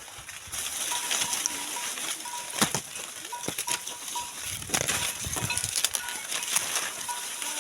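Dry maize leaves and husks rustling and crackling during hand harvesting, with several sharp snaps scattered through.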